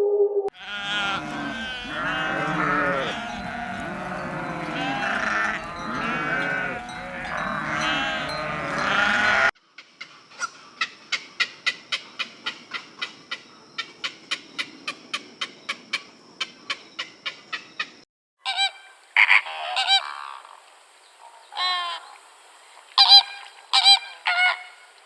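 A flock of geese honking, many calls overlapping, for about nine seconds. Then comes a rapid series of short clicking calls, and near the end a few separate short honking calls.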